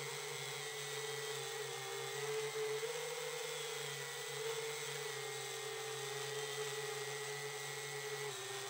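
FPV freestyle quadcopter's brushless motors and propellers whining steadily, heard through its onboard camera, the pitch stepping up and back down slightly with throttle changes.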